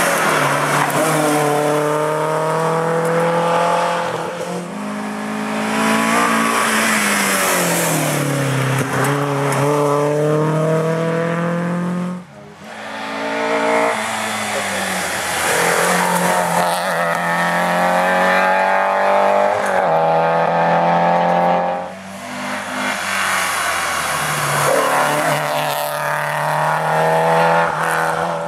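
Historic rally car engines revving hard through a bend, three cars in turn. The pitch climbs through the gears and drops as each driver lifts off, and the sound breaks off twice where one car gives way to the next.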